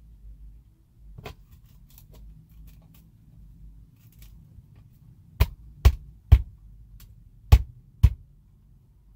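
Blue plastic electrical box being knocked into a hole cut through a wooden wall: a light click about a second in, then five sharp, heavy knocks, three about half a second apart followed by two more.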